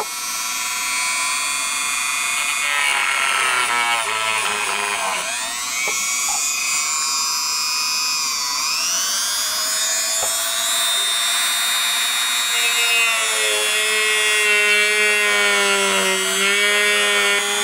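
Handheld rotary tool with a thin cutting disc running at speed, a high motor whine that dips in pitch and comes back up twice. Near the end the spinning disc is cutting into the antenna's potted plastic base, adding lower tones under the whine.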